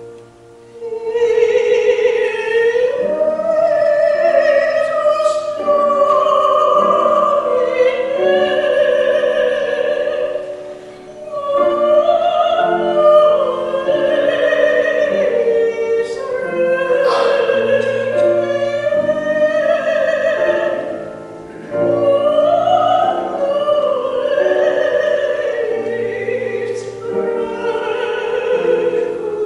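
A woman singing a solo with vibrato over sustained keyboard accompaniment, with brief breaks between phrases about eleven and twenty-one seconds in.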